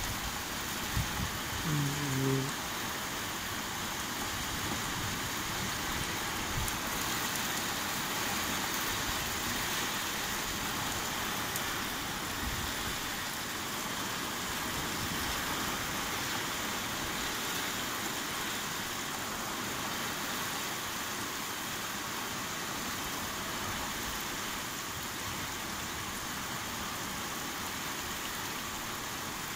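Heavy rain falling steadily during a thunderstorm, an even hiss. A brief low sound about two seconds in.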